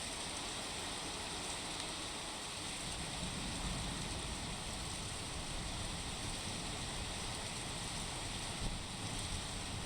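Steady rain falling during a thunderstorm, an even hiss, with one short knock about nine seconds in.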